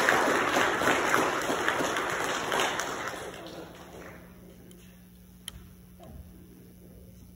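Congregation applauding, the clapping dying away about four seconds in. Then a quiet room with a steady low hum and a single click.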